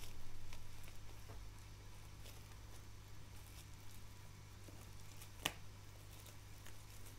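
Faint crinkling and rustling of bubble wrap and plastic in a cardboard box as a cat shifts inside it, with one sharp click about five and a half seconds in.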